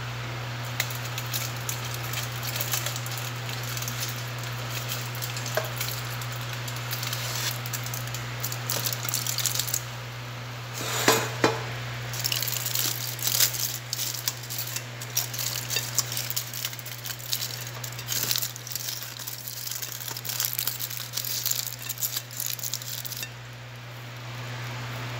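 Aluminium foil crinkling and crackling in fits and starts as it is pulled open around freshly air-fried salmon, with a louder clatter about eleven seconds in. A steady low hum runs underneath.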